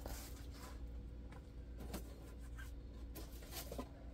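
Faint handling noise: light rustling and a few small clicks as craft-kit packaging is moved about, over a low steady hum.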